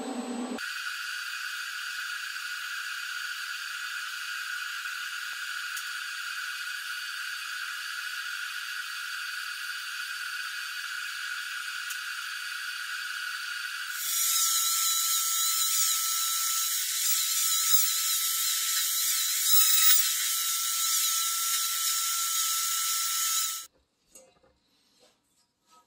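TIG welding arc on thin sheet steel: a steady, high-pitched buzzing hiss. It grows louder and changes pitch about halfway through, then stops abruptly near the end as the arc is broken.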